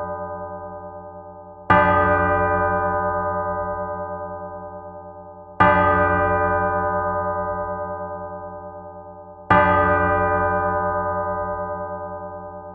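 A single church bell tolling: three strikes about four seconds apart, each ringing out and slowly fading before the next. A low hum throbs beneath the ringing.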